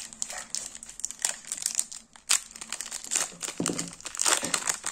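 Foil wrapper of a Pokémon booster pack crinkling and tearing as it is opened by hand: irregular sharp crackles, loudest about two seconds in and again near the end.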